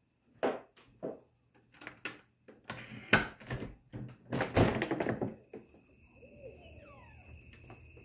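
A door being handled: several knocks and thunks, then two longer scraping rushes as it is opened and shut. After that, a faint steady high drone of night insects.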